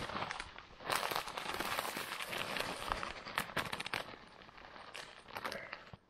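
Campfire crackling and snapping, with irregular sharp pops and a denser spell of crackling from about a second in.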